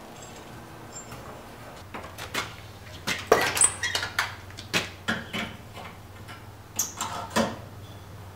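Steel tongs and a red-hot Bowie knife blade clinking and scraping against a metal rack as the blade is hung on a hook to air-cool during normalizing. There is a run of sharp metallic knocks and clinks, loudest about three seconds in, that tails off near the end. A low steady hum starts about two seconds in.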